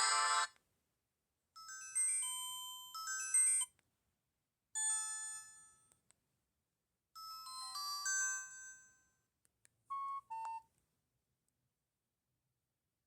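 Vortex Image phone's built-in alert tones through its speaker: a ringtone cuts off half a second in, then a series of short electronic notification chimes, each a quick melodic jingle of a few notes, with silence between them. The last is two short beeps about ten seconds in.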